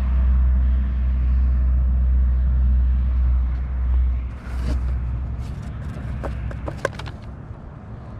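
A loud low rumble for about the first four seconds, then several sharp clicks and rustles as a cardboard box flap is lifted and the items inside are handled.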